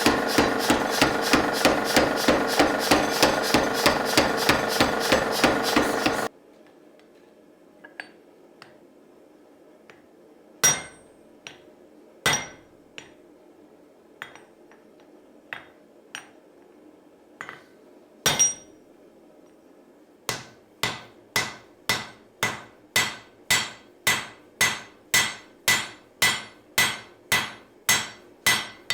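Hammer blows on hot steel at an anvil while an adze is forged. First comes a fast run of blows, about four a second, over a loud steady noise that stops suddenly about six seconds in. Then a few scattered single blows, and near the end an even run of ringing blows, about two a second.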